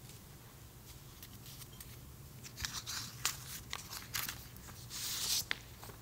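Faint clicks and rustling of objects being handled close to a microphone, starting about two and a half seconds in with a longer rustle near the end, over a steady low hum.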